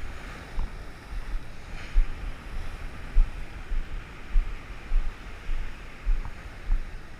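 Wind buffeting the microphone in uneven low thumps over the steady hiss of rough sea waves.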